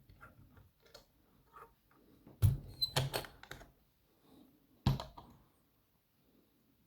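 A Yale dimple lock and picking tools being handled: scattered faint clicks, a cluster of louder knocks and clicks about two and a half seconds in, and one sharp knock near five seconds.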